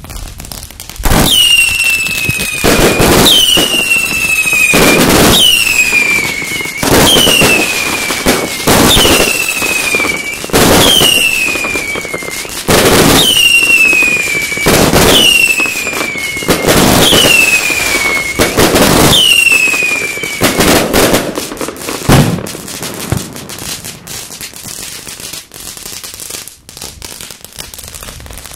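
St8ment Estallar 100-shot 20 mm fireworks cake firing, a volley about every two seconds, each with a whistle that falls in pitch, about ten times in a row. After the last whistle it trails off into crackling, with one last bang a couple of seconds later.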